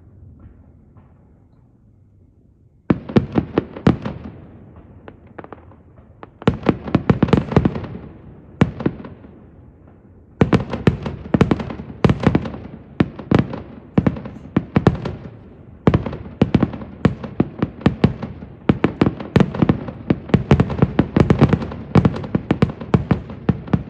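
Fireworks display: after about three quiet seconds, rapid volleys of bangs and crackling begin and come in waves, almost without a break from about ten seconds in.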